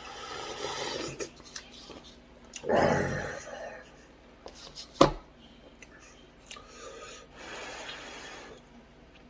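Eating noises over kimchi cup ramen: several noisy stretches of slurping and chewing, the loudest about three seconds in, with one sharp click about five seconds in.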